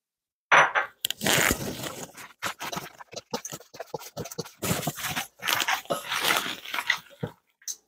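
Hands mixing ground pork with spices and ice water in a bowl: squishing in short, irregular strokes that start about half a second in.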